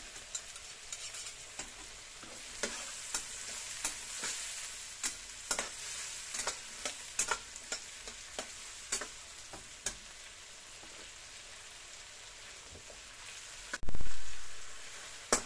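Pea eggplants sizzling in a wok with a little added water while a metal spatula stirs them, scraping and clinking against the wok many times through the first ten seconds or so. Near the end a single loud thump, the loudest sound, dies away over about a second.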